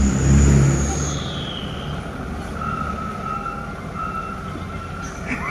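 Truck traffic on a road: a low engine rumble, loudest in the first second, that settles into a steady drone as a loaded cargo truck approaches.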